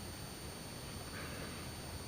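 Quiet room tone with a faint steady high-pitched whine, and a faint soft rustle about a second in.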